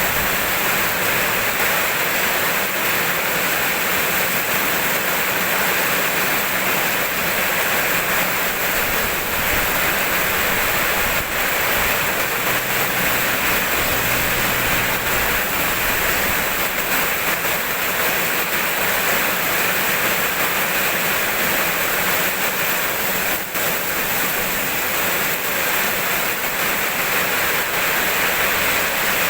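Steady rain falling, an even, unbroken hiss of rain.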